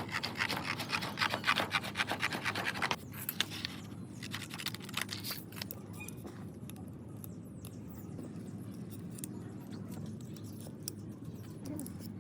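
Fast, repeated hand scraping or scrubbing strokes. They stop about three seconds in, leaving a low hum with scattered light scratches and clicks.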